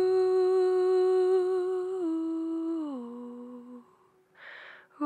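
A voice humming a slow melody. It holds one note for about two seconds, then steps down twice and fades out. A brief breath-like hiss follows, and the humming picks up again right at the end.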